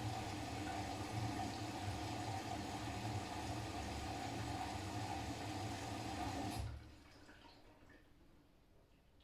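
Siemens iQ500 front-loading washing machine taking in water: a steady rush of water with a low hum, cutting off abruptly about seven seconds in, after which only a faint, fading trickle remains.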